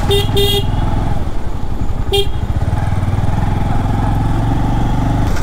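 Bajaj Avenger 220 DTSI's single-cylinder engine running steadily under way in town traffic. A vehicle horn beeps twice quickly at the start and once more about two seconds in.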